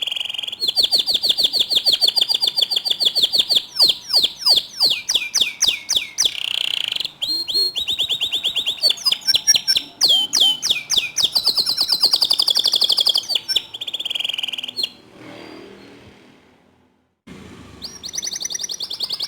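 Domestic canary singing a fast, loud song of high trills and rapidly repeated rolled notes. The song drops away about three-quarters of the way through and starts again shortly before the end.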